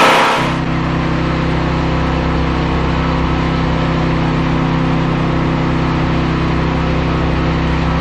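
Lawn mower engine driving a homemade edger saw, running steadily with no board in the blade; a loud cutting noise dies away in the first half second.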